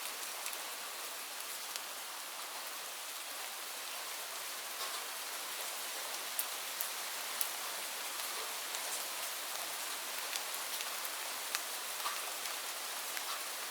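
Steady rainfall: an even hiss with scattered single raindrops ticking sharply on surfaces.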